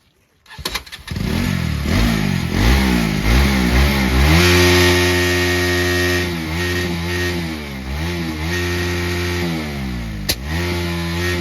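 Motorcycle engine starting about half a second in, then revved up and held high for a couple of seconds, followed by a series of short throttle blips.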